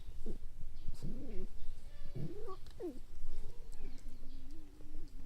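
Foxes whining: several short rising-and-falling cries in the first three seconds, then a lower, drawn-out whine near the end.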